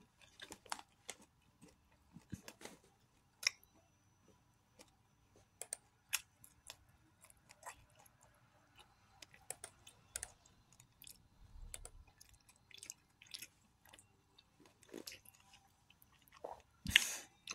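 A person chewing a crunchy whole-grain chocolate snack bar: faint, scattered crisp crunches and small mouth clicks at an irregular pace.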